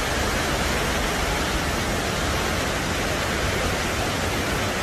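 Waterfall, a steady rushing roar of falling water with no breaks.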